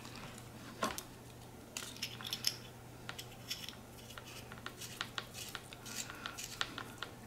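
Faint, irregular small metal clicks and scrapes as the metal shell of a quarter-inch jack plug is turned and threaded on by hand, with one sharper click about a second in.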